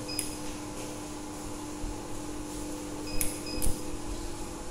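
Vending machine keypad beeping as its buttons are pressed: one short beep with a click just after the start, then two more quickly one after another a little past three seconds in. Under them a steady machine hum runs and cuts off at the very end.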